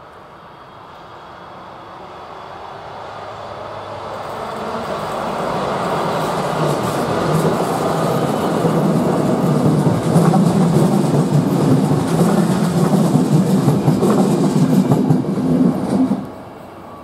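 Electric locomotive-hauled passenger train approaching and growing louder over several seconds, then passing close by with its wheels rumbling and clattering on the rails. The noise drops off sharply near the end as the last coach goes by.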